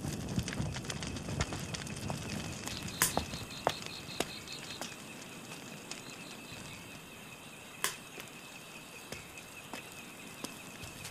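Wood fire crackling with scattered sharp pops, a low rush of flames in the first couple of seconds. A steady high trill runs underneath from about two and a half seconds in.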